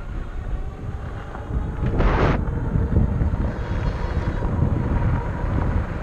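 Wind buffeting the camera microphone on a moving e-bike: a steady low rumble, with a short hissing gust about two seconds in.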